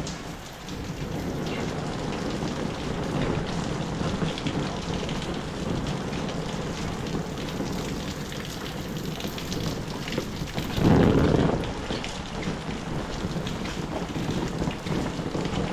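Heavy rain falling steadily, with one brief louder rush of sound about eleven seconds in.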